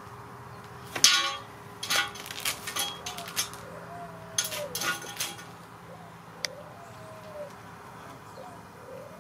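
Metal fence pipe knocked and clinked as a dog paws and noses at its open end, digging for a mouse inside. A sharp clank about a second in is the loudest, followed by scattered bursts of knocks and clinks.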